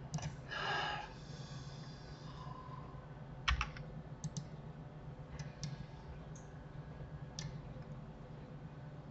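Computer keyboard keys and mouse buttons clicking, a handful of single clicks spread out, the loudest about three and a half seconds in. A short breathy hiss comes near the start, over a steady low hum.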